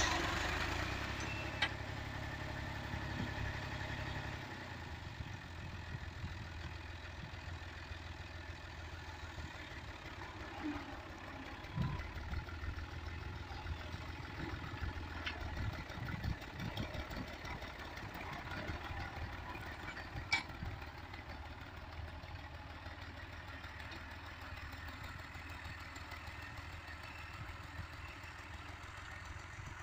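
Diesel tractor engine running steadily under load as it drags a rear leveling blade through ploughed soil, growing fainter over the first few seconds as the tractor moves away. A couple of sharp ticks stand out, one near the start and one about two-thirds of the way through.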